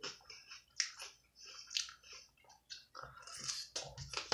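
Chewing a mouthful of salad with broccoli and lettuce, with soft crunches at irregular intervals. Near the end, a fork rustles and scrapes in the plastic salad container.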